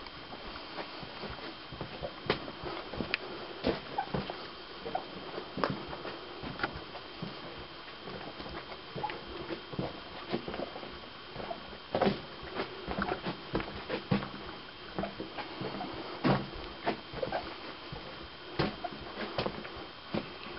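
Irregular small knocks, clicks and scrapes of loose rock, at uneven intervals, with a faint steady high tone underneath.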